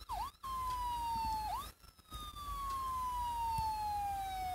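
Police car siren: a few quick whooping chirps, then a long tone sliding slowly downward in pitch, broken once by a short whoop, then falling again and turning up at the end.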